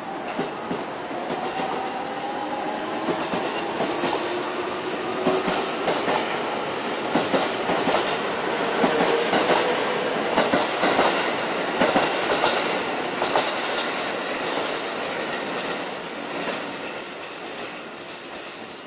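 Electric commuter train pulling out and accelerating past: a motor whine rises in pitch, then the wheels clatter over rail joints and points. The clatter is loudest in the middle and fades toward the end.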